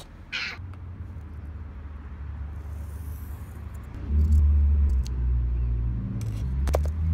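A low, steady rumble that gets louder about four seconds in, with a short rustle just after the start and a few sharp clicks near the end.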